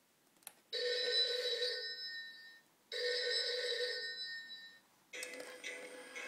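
Novelty chameleon telephone ringing electronically: two rings of about two seconds each, after a short click. Its built-in singing tune starts about five seconds in.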